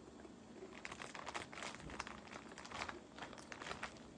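Dense crinkling and crackling starting about a second in, from hands working through the seafood boil and its wrapping.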